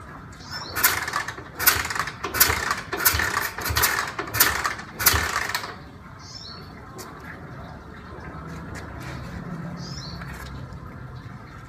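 Honda Tiger single-cylinder engine being kick-started about seven times in quick succession with its spark plug out, each kick giving a sharp noisy puff as the engine turns over without firing. A few faint bird chirps follow.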